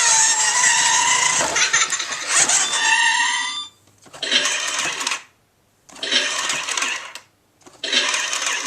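Toy dump truck's speaker plays an engine sound effect with rising pitched tones. Then the truck's small electric drive motor and plastic gears buzz in three bursts of about a second each, with short pauses between.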